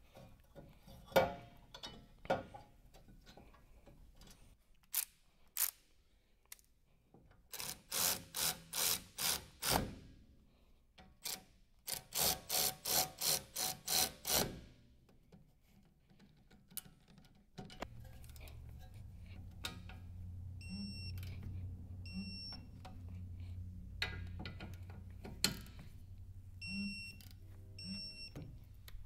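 Hand-tool work on a car's brakes during rotor replacement: scattered knocks and clicks, then two runs of rapid, evenly spaced strokes of six to eight each. About two-thirds of the way in, a steady low hum sets in, with a few short high beeps near the end.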